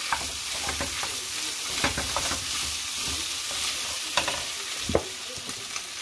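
Sliced hot dogs, bologna and egg sizzling in a skillet while a wooden spoon stirs and scrapes through them, knocking against the pan several times. The stirring stops about five seconds in, leaving the steady sizzle.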